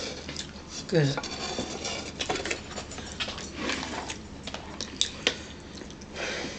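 Spoon and fork clicking and scraping against plastic bowls as people eat, in scattered light taps, with one short spoken word about a second in.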